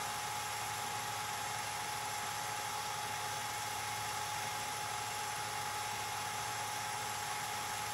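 8mm film projector running: a steady mechanical whir with one constant hum tone over an even hiss, unchanging throughout.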